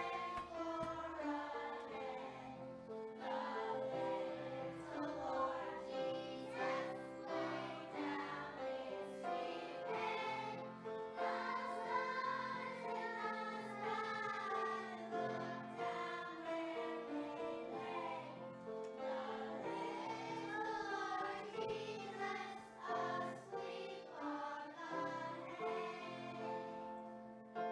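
A children's choir singing a song to instrumental accompaniment.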